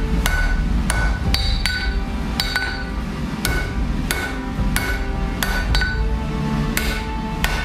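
Blacksmith's hammer striking steel on an anvil, about two blows a second in an uneven rhythm, each blow ringing briefly.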